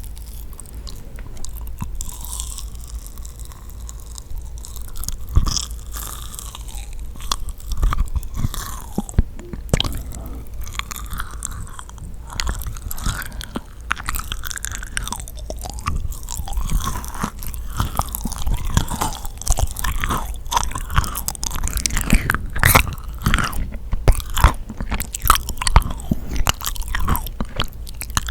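A person biting and chewing yakgwa, a sticky Korean honey-fried cookie: a steady run of sticky, crunching mouth sounds with many short smacks, growing busier in the second half.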